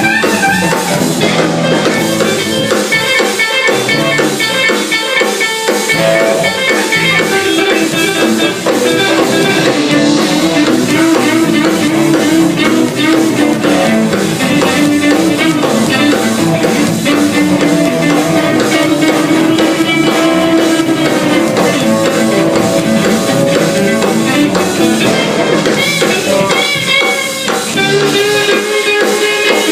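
A band jamming: guitar playing sustained melodic lines over a drum kit keeping a steady beat with cymbals.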